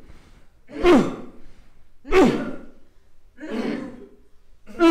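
A person making short, forceful voiced exhalations in a breath-and-voice exercise, each one sliding steeply down in pitch with a breathy edge. They come a little over a second apart, four in all; the third is softer and breathier.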